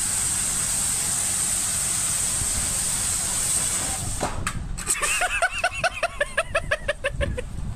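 Pressure washer spraying water: a loud, steady high hiss for about the first four seconds, cut off with a click. From about five seconds a rapid string of high-pitched vocal bursts follows, about six a second.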